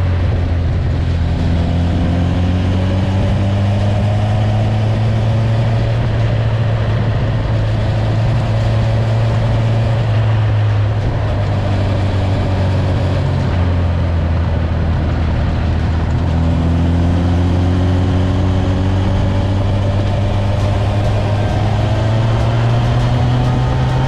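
Honda CB1000R inline-four engine running under way through a G&G aftermarket exhaust with the baffle in. The engine note climbs slowly, eases off about halfway through, then climbs again.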